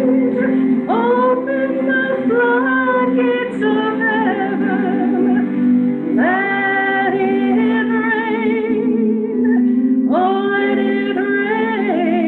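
A woman singing a slow worship song over instrumental accompaniment, holding long notes with a wide vibrato. New phrases begin about a second in, about six seconds in, and about ten seconds in.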